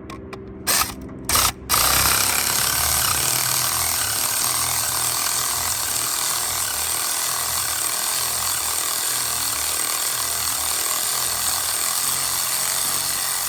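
Ratchet wrench spinning out a long exhaust header bolt: three short blips, then a long steady run of fast clicking as the bolt, already broken loose, is backed out.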